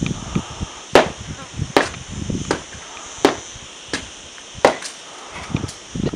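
Foam pool noodles clashing in a mock sword fight: about eight sharp whacks, roughly one a second.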